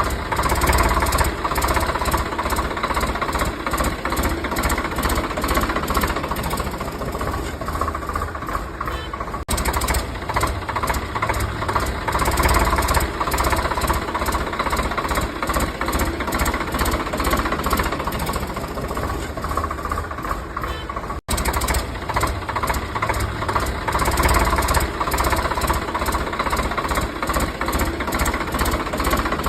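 A small motor running steadily with a fast, even knocking beat, cut off briefly twice.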